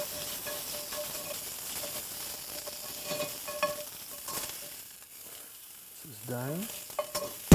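Crumbled bratwurst sausage meat sizzling in a cast iron skillet while a metal spatula stirs and scrapes it, with a few light taps. The sizzle gets quieter about two-thirds of the way through as the meat is scooped out of the pan.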